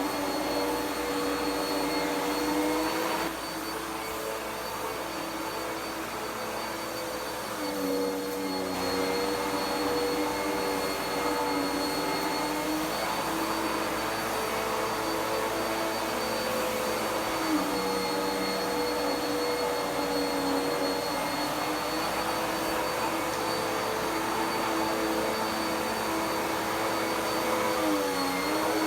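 Dirt Devil PowerMax Pet vacuum cleaner running steadily with a whining motor, its pitch dipping briefly about five times.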